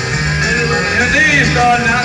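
Live band music in a country-flavoured rock and roll style, with guitar to the fore over a steady bass line.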